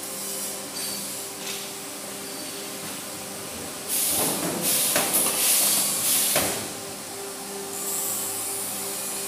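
Chain-making machinery in a chain factory: a steady machine hum, then about four seconds in a couple of seconds of loud hissing noise with a few sharp knocks, followed by a steady high hiss near the end.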